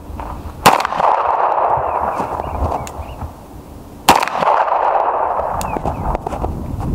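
Two pistol shots from a 9 mm Beretta 92FS, about three and a half seconds apart, each followed by a long rolling echo.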